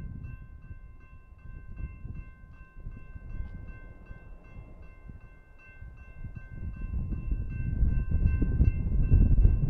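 Railroad grade-crossing warning bell ringing steadily while the gates are down. From about seven seconds in, a low rumble grows much louder: an approaching freight train.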